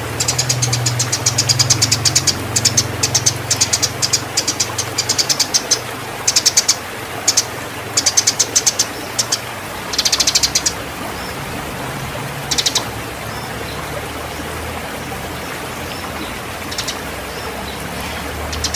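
Eurasian tree sparrows giving rapid, chattering chirp trains in bursts, the agitated fighting calls of birds in breeding condition. The bursts come thick for about the first ten seconds, then only a few short ones. A steady low hum runs underneath.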